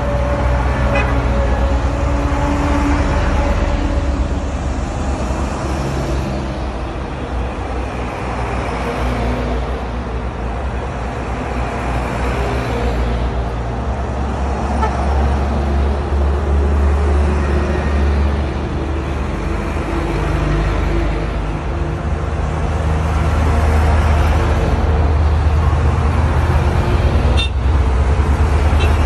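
A convoy of fire trucks driving past one after another, their heavy engines and tyres making a steady low rumble. Short horn toots sound now and then. It gets louder over the last few seconds as a truck passes close by.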